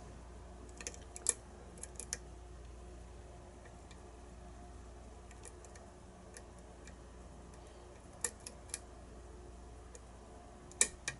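Faint, irregular metallic clicks from a lock pick working the pins of a challenge padlock held in a false set, with a few clicks a second in short clusters and long gaps between them, over a faint steady hum.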